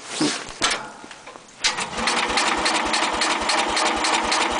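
A few clicks and knocks, then about a second and a half in a snowblower's electric starter begins cranking the engine in a steady, even beat of about six or seven strokes a second. The engine turns over without firing: it is cold and dry and needs priming before it will start.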